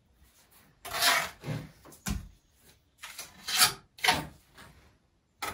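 Rough scraping and rubbing of brick on mortar, in a few short strokes, as soldier bricks over a fireplace opening are pressed and worked into place by hand. There is a dull knock about two seconds in.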